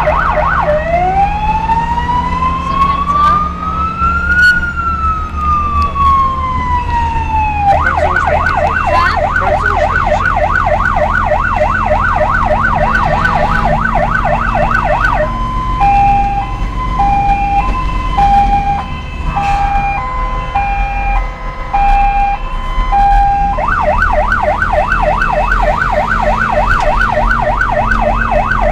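Electronic emergency-vehicle siren switching between patterns: a fast yelp, then one slow wail rising for about four seconds and falling again, the yelp again, then a two-tone hi-lo alternating for several seconds past the middle, and back to the yelp near the end. A steady low vehicle-engine drone runs beneath it.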